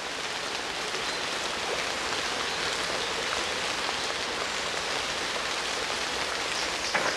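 Heavy rain falling steadily, a dense even hiss of drops with a few sharper individual drips.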